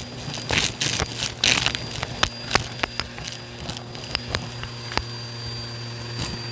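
Bissell vacuum running with a steady hum and a thin high whine while it sucks up gritty debris, which crackles and clicks irregularly as the pieces rattle into the nozzle.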